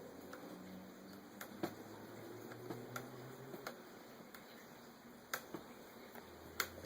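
Scattered small clicks and taps as a screwdriver works the tiny screws of a laptop's screen bezel, about six separate sharp clicks spread through, the loudest near the middle and near the end.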